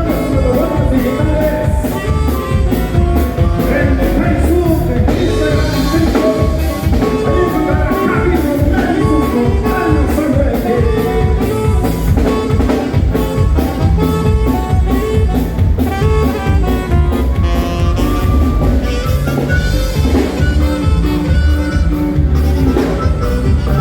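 Norteño band playing a polka live: a saxophone-led melody over bass and drums with a quick, even beat.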